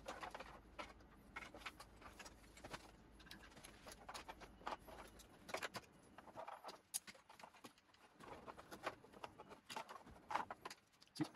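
Faint rustling and scattered light clicks and taps from the straps and buckles of a Mosko Moto Hood 5 tank bag harness as it is hooked around a motorcycle tank and threaded through.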